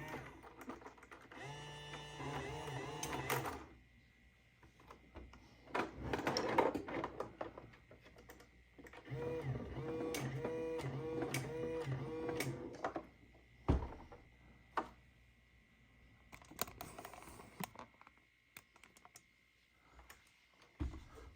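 Toy electronic claw crane machine running: its small motors whir in several stretches as the claw moves, with clicks and knocks between. Near the middle comes a run of short tones pulsing a few times a second.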